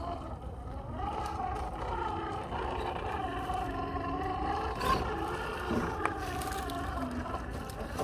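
Whine of an RC crawler's Hobbywing Fusion 1800kv brushless motor and drivetrain, its pitch rising and falling as the throttle is worked, with a few sharp clicks along the way.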